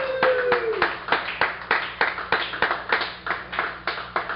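A small audience clapping in quick, uneven, separate claps after a poem ends. A drawn-out whoop from one listener trails off in the first second.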